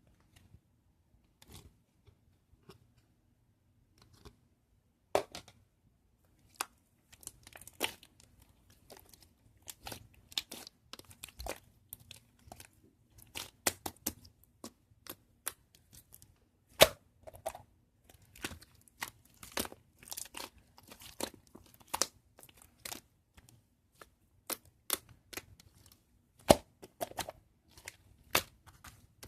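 Slime being worked by hand, making sharp popping and crackling clicks. The clicks come scattered at first, then several a second from about five seconds in.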